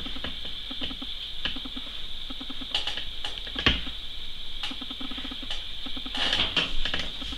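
A small blade scraping across damp watercolour paper in short repeated strokes, scraping rock shapes into the paint. There is one sharper tap about halfway through.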